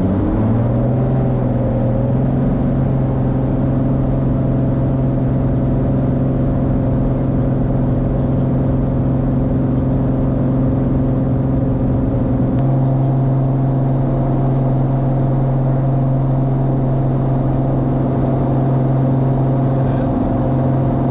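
Cirrus SR22 Turbo's piston engine and propeller at takeoff power, heard from inside the cabin. A loud, steady drone that rises in pitch in the first second, then holds.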